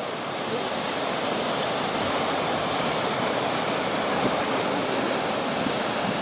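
Ocean surf: waves breaking and washing in a steady, continuous rush of water.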